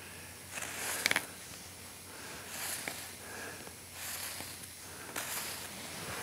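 Marker pen drawing along the growth rings on the end grain of a post oak log, in several short strokes.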